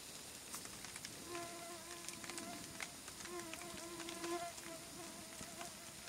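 A flying insect buzzing close by for about four seconds, a steady hum that swells and fades again, over the soft crackling and popping of a smouldering campfire's embers.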